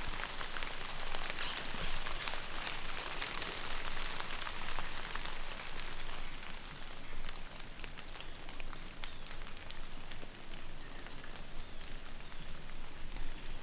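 Rain falling, a steady hiss with individual drops clicking close by; the hiss thins out about halfway through.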